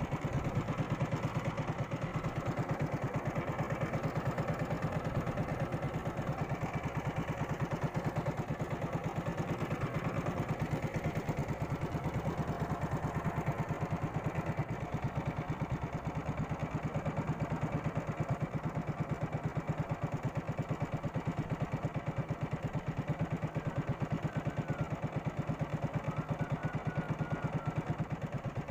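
Small fishing boat's engine running steadily under way while trolling, a rapid even throb.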